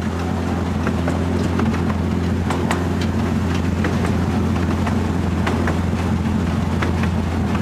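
Moving 10.25-inch gauge miniature railway train: the locomotive's engine runs with a steady low drone, with scattered sharp clicks and rattles from the wheels and carriages on the track.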